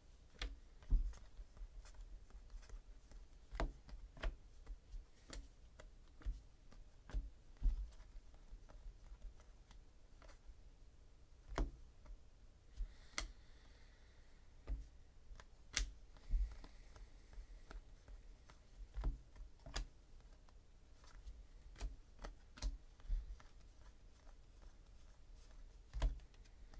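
Trading cards being flipped through and set down one at a time, making light, irregular clicks and taps.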